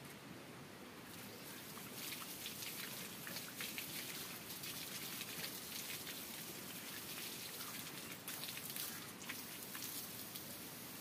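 Water pattering in fine drops, a crackly spattering hiss that starts about a second in.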